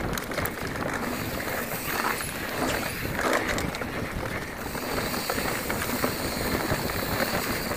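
A Specialized Enduro mountain bike descending a dirt singletrack at speed: tyres running over the dirt and the bike rattling and knocking over bumps, mixed with wind rushing over the microphone.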